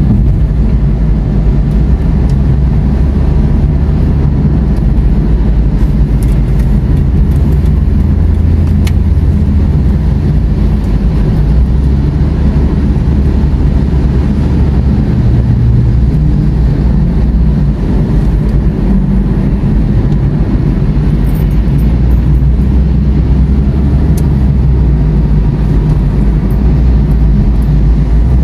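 Car cabin noise while driving on a wet road: a steady low rumble of engine and tyres, heard from inside the car.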